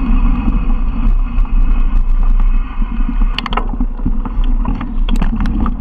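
A mountain bike riding fast down gravel singletrack: a steady rumble of tyres and wind on the camera microphone, with sharp clicks and rattles from the bike over bumps, the loudest about three and a half and five seconds in.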